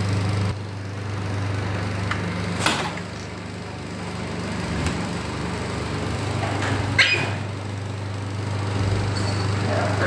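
A steady low machine hum, with two short sharp knocks about three and seven seconds in, fitting an empty plastic bottle being nudged across a terrazzo floor by a rose-ringed parakeet.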